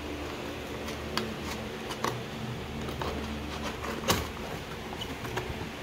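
Cardboard keyboard box being handled and opened: scattered light taps and scrapes of cardboard, with one sharper knock about four seconds in, over a steady low hum.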